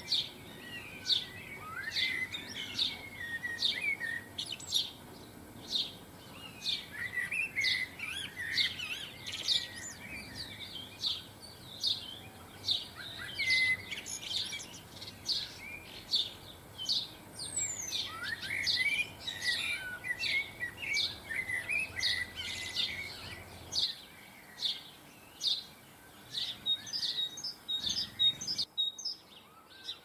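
Garden songbirds: one bird chirps sharply over and over, about once a second, while bursts of rapid twittering song come and go. The sound cuts out briefly near the end.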